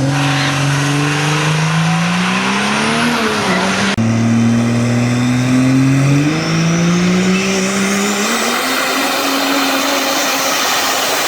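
Diesel engines running hard under load, their pitch climbing steadily as they rev up. About four seconds in, the sound switches abruptly to a second engine that starts lower and climbs again.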